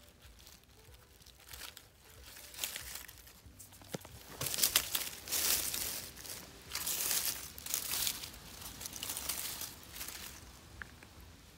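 Dry fallen leaves rustling and crackling in irregular bursts as they are disturbed, loudest in the middle stretch, with a sharp click about four seconds in.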